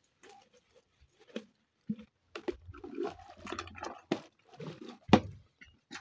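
Hand-washing dishes: a soapy sponge squishing and scrubbing over a plastic item, with water splashing and dripping into a plastic basin in irregular bursts. A single sharp knock just after five seconds is the loudest sound.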